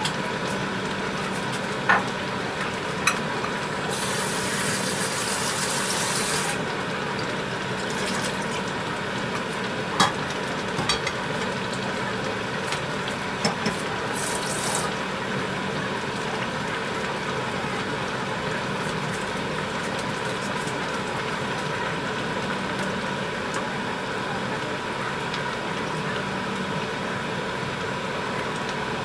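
Tteokbokki simmering in a pan over a steady hum, with a few sharp clicks and two short bursts of hissing.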